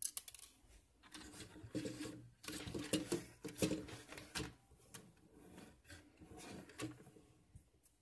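Hard plastic parts of an MJX X600 hexacopter's motor arm being handled and fitted together by hand: irregular clicks, taps and rubbing, busiest in the middle and dying away near the end.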